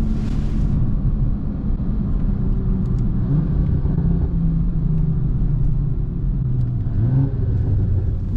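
BMW 340i's turbocharged B58 inline-six running under way, its note rising and falling with the throttle over a steady low rumble of road and tire noise.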